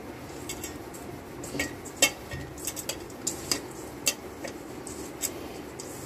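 Stainless steel mixing bowl clinking as a hand works dry bread crumbs, milk powder and sugar together in it: irregular sharp clinks against the steel, the loudest about two seconds in and again about four seconds in.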